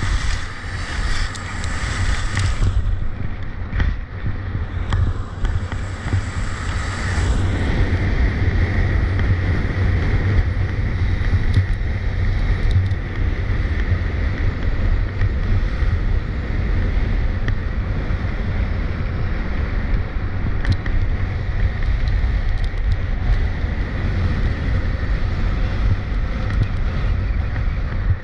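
Wind buffeting a body-worn camera's microphone at skiing speed, a steady low rumble, mixed with the hiss and scrape of skis on hard, icy piste snow. The scraping is sharper in the first couple of seconds and again around six seconds in.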